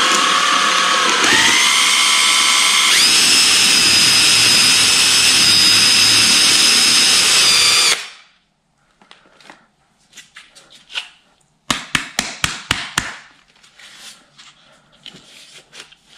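Cordless drill running steadily as it bores into the end of a cut IKEA Kallax shelf panel. Its whine dips in pitch about a second in and steps up a couple of seconds later, then stops about eight seconds in. A quick run of sharp clicks and some light handling knocks follow.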